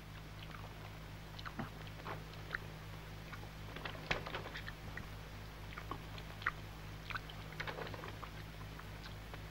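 A man eating beans and bread greedily: chewing and biting, with scattered short clicks, over a steady low hum.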